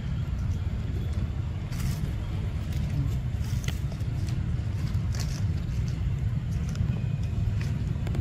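Steady low rumble with scattered short crackles and rustles of dry leaves underneath.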